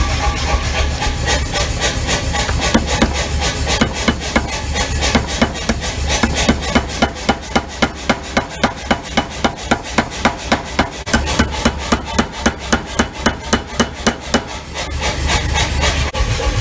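Anyang C41-75 pneumatic power hammer striking hot steel in a fast, even run of blows, about four a second, over the steady hum of the hammer's motor. The blows come unevenly at first, settle into a regular rhythm, and stop shortly before the end.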